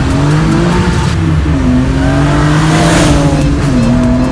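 BMW E36 M3's engine running hard, its pitch rising and falling gently as the throttle is worked.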